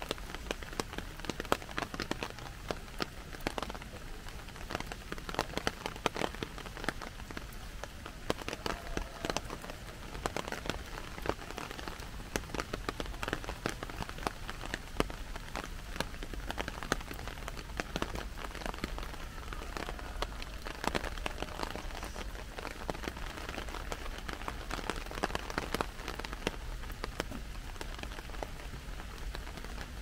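Heavy rain falling on an umbrella overhead: a dense, irregular patter of sharp drop hits over a steady hiss of rain on the forest and the wet boardwalk.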